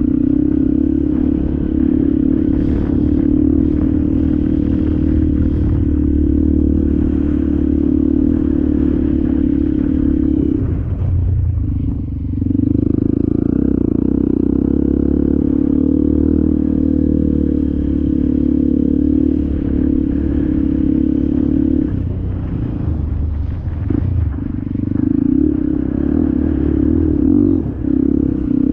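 Dirt bike engine running under steady throttle as the bike rides a sandy desert track, recorded on the bike itself. The engine note dips briefly about 11 seconds in and again around 23 seconds in, as the throttle is eased.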